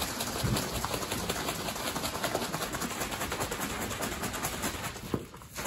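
A water bottle of liquid stain-and-shellac mix being shaken hard: a rapid, even rattling and sloshing that pauses briefly near the end.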